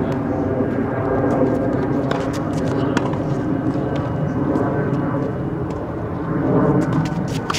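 Tennis balls struck by rackets in a net rally, a few sharp pops spaced irregularly, over a steady mechanical engine drone with several pitched tones.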